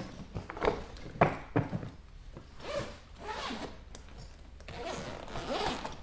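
Zipper of a Delsey SkyMax 2.0 softside carry-on suitcase being pulled around the case to open it, in a couple of long zipper runs in the second half. A few knocks in the first couple of seconds come as the bags are handled.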